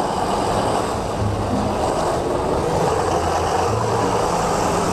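Diesel engine of a semi-truck tractor running as the cab drives slowly, a steady low drone.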